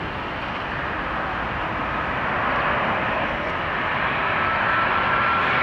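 A British Airways Boeing 747-400's four Rolls-Royce RB211 turbofans on final approach: a steady jet rumble growing louder as the aircraft nears, with a thin, steady whine over it.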